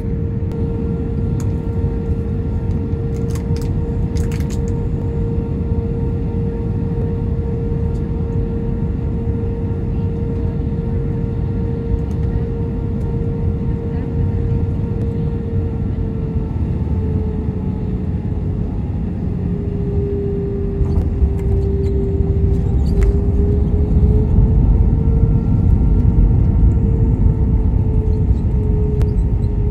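Airbus A319 cabin noise on short final and landing: steady engine and airflow noise with a held engine tone. About two-thirds through the tone sags and recovers while a deep rumble builds and the noise grows louder, as the jet touches down and rolls out on the runway.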